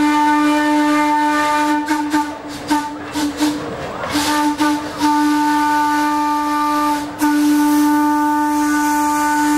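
Darjeeling Himalayan Railway B-class steam locomotive's whistle blowing a series of long, steady blasts. A few short toots and bursts of hissing steam come about two to four seconds in.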